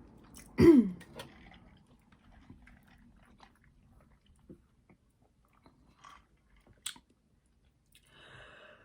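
Chewing and biting seafood, with soft wet smacks and faint mouth clicks. A short, loud sound that drops in pitch comes just under a second in.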